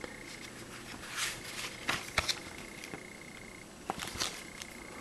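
Pages of an old paper booklet being turned and handled, with a few short, soft paper rustles and light taps.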